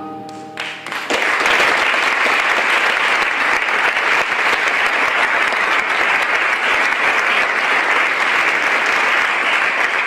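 Audience applauding, breaking out about a second in and going on steadily and loudly, just as the last notes of a played-back clip fade.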